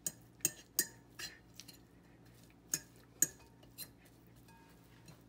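Metal fork clinking and scraping against a ceramic bowl while mashing canned chicken breast into shreds: irregular clinks, the loudest two about three seconds in.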